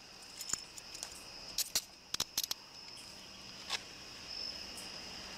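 Night insects chirping in a steady high-pitched drone, with a handful of sharp clicks and taps in the first four seconds.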